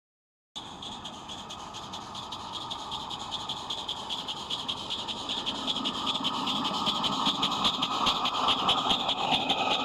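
Roundhouse live-steam model of SR&RL #24 working along the track: a steady hiss of steam with a fast run of exhaust beats, starting half a second in and growing louder as it comes nearer.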